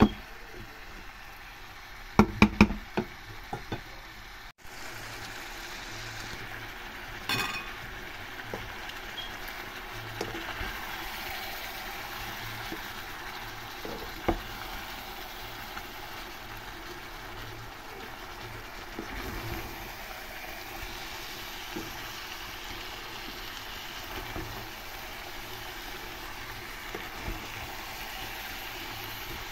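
Chicken masala fry sizzling steadily in a metal pot as it is stirred with a wooden spatula. There are a few sharp knocks of the spatula against the pot, the loudest a cluster about two to three seconds in.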